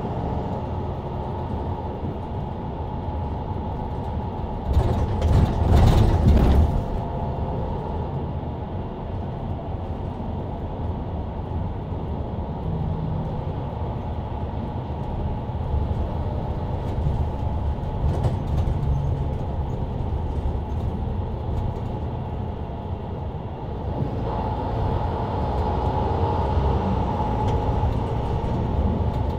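Mercedes-Benz Citaro C2 LE city bus's engine and ZF Ecolife automatic drivetrain running, heard inside the cabin at the rear. About five seconds in, a loud rush of noise lasts about two seconds, and near the end the drive noise grows louder with a clearer whine.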